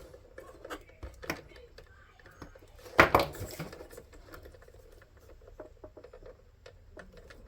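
Small clicks and light knocks of hands handling a small plastic switch, wires and tools on a work surface, with one much louder burst of handling noise about three seconds in.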